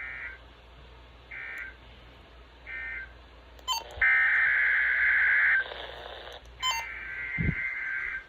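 NOAA Weather Radio's SAME/EAS digital data tones heard over the radio: three short buzzing bursts about a second apart, the end-of-message code that closes the weekly test, then two longer bursts of the same data tone.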